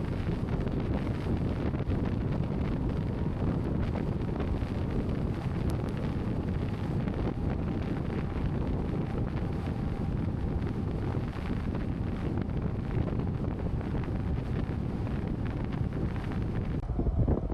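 Wind buffeting the microphone: a steady, dense low rumble.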